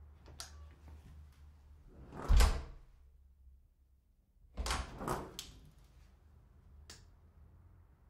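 Apartment front door being opened and closed: a few light handle and latch clicks, then a heavy thud with a deep boom about two and a half seconds in. A second cluster of knocks and latch rattles follows around five seconds, and a single sharp click comes near seven seconds.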